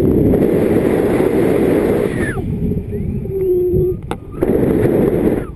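Wind rushing over the paraglider pilot's action-camera microphone in flight. It drops away briefly about halfway, then comes back after a sharp click.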